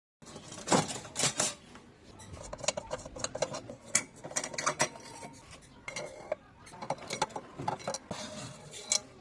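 Metal parts of a Petromax pressure lantern clinking and clanking as they are handled, an irregular run of sharp knocks and clicks.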